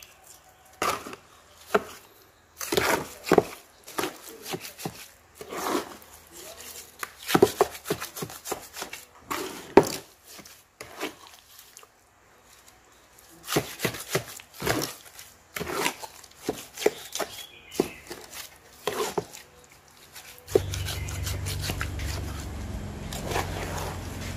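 A small pointed trowel scraping and knocking against the sides of a terracotta basin as it mixes a wet, grey, mortar-like mix, in irregular strokes. About twenty seconds in, a steady low rumble starts and continues under the scraping.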